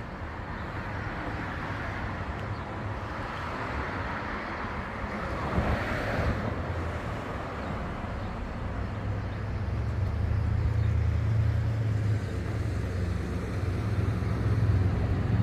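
Street traffic: a car passes, loudest about six seconds in, over a steady low rumble.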